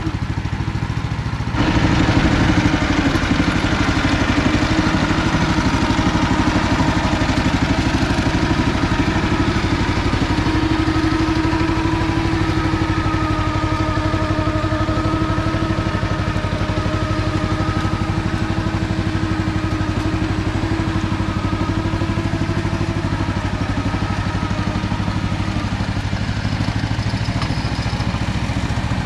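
Engine of an MT8-070 MINI single-axle walking tractor running steadily while pulling a ZP-130 plow; it gets louder about a second and a half in and then holds an even note.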